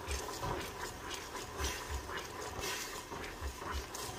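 Wooden spoon stirring chopped garlic through bubbling sugar syrup in a stainless steel pot, in irregular scraping strokes against the pot, with the syrup sizzling and a few soft knocks.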